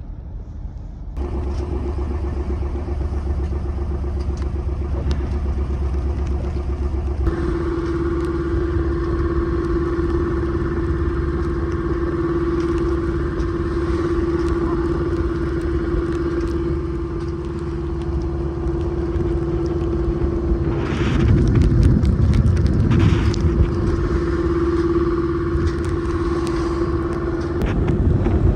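A sailboat's engine running steadily under way with a constant hum, over the rush of wind and of the sea against the hull. Twice, about two-thirds of the way through, the wind and water rush louder.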